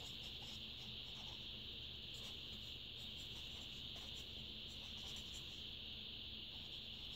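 A steady, even high-pitched hiss, with faint scratching of a felt-tip marker writing on paper.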